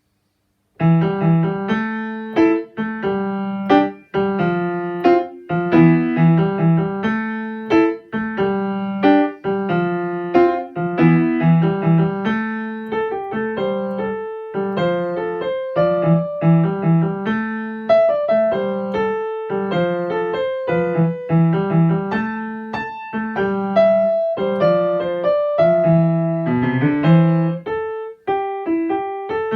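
Solo piano playing an intermediate blues in A minor, the left hand repeating a patterned bass line under a right-hand melody. It starts just under a second in.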